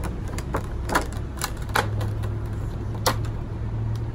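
Sharp plastic clicks and snaps as a rigid clear Funko Pop protector case with locking tabs is handled and pried open. The clicks come irregularly, the loudest about a second in and again about three seconds in.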